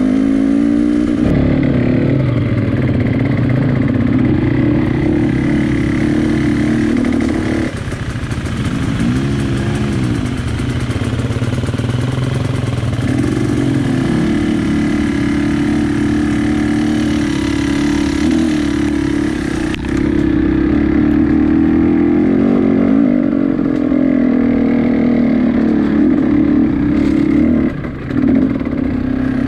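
An engine running steadily, its pitch rising and falling briefly twice about a third of the way in.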